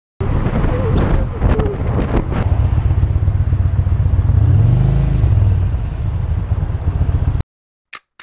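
Motorcycle engine running under a heavy low rumble of wind and road noise on a helmet camera, with a few knocks in the first couple of seconds and the engine pitch rising and falling briefly about five seconds in. The sound cuts off suddenly near the end, followed by two faint clicks.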